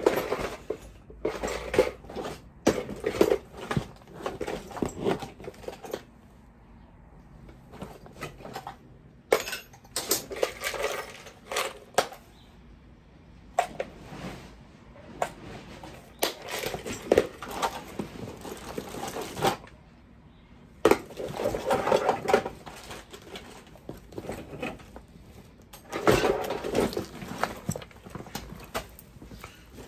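Tools and metal parts clinking and clattering as they are handled and set down, in irregular bursts of knocks and clicks with a few short quiet spells.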